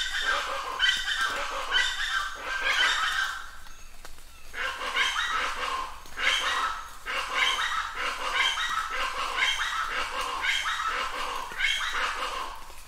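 A run of short, repeated animal calls, about two a second, with a brief break about four seconds in.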